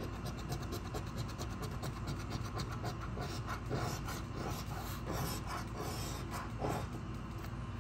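A round scratcher disc scraping the scratch-off coating from a lottery ticket, in quick, rapid repeated strokes.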